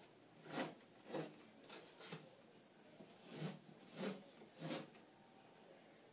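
Adhesive tape being pulled off a roll in a series of short rasping pulls, about seven in all, with a gap around the middle.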